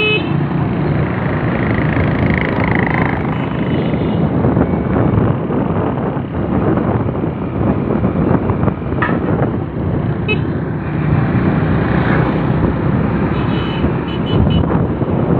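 Street traffic: motorcycle and motor-rickshaw engines running close by, a steady low drone, with a few short high horn toots.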